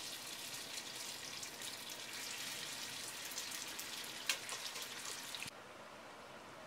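Hot olive oil with pancetta and garlic sizzling and crackling in a pot as wet cooked spaghetti is added, with scattered pops and one sharper pop about four seconds in. The sizzle cuts off suddenly about five and a half seconds in, leaving a faint hiss.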